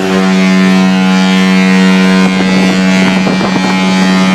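Cruise ship's horn sounding one long, loud blast at a steady pitch, starting abruptly. It is the ship's signal to passengers still ashore to hurry back aboard.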